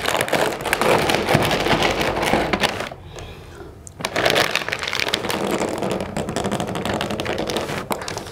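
Plastic snack-chip packets crinkling and crackling as they are bitten, squeezed and tugged by mouth while being worked open without hands. The crinkling stops for about a second partway through, then starts again.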